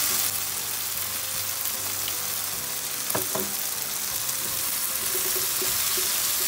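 Sliced pork, bean sprouts and onions sizzling steadily in a hot nonstick frying pan over a gas burner, stirred and tossed with a wooden spatula and chopsticks.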